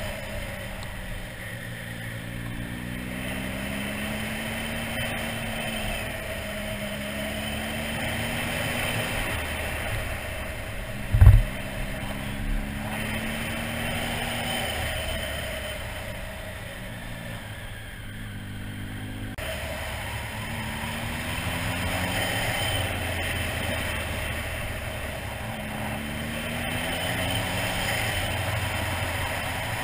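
Motorcycle engine running while riding, its pitch rising and dropping again and again as it accelerates and changes gear, over steady wind and road noise. A short loud low thump about eleven seconds in.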